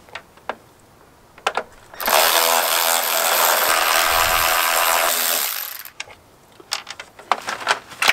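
Cordless drill-driver running steadily for about four seconds, backing out the screws that hold the emblem bracket to the plastic grille. A few light plastic clicks come before and after it.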